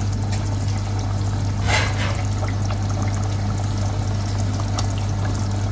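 Potato chunks being dropped and stirred into a pot of simmering meat curry gravy, the liquid sloshing and splashing, with one louder splash about two seconds in. A steady low hum runs underneath.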